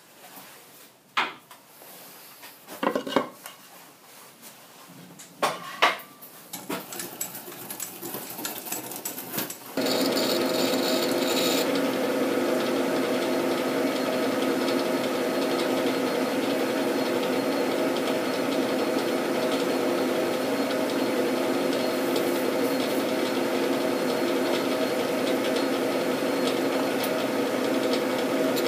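A few short knocks and clicks of tool handling. Then about ten seconds in, a metal lathe starts up and runs steadily, a hum with several steady pitches, while a boring bar takes a cut inside the bore of a spinning flange.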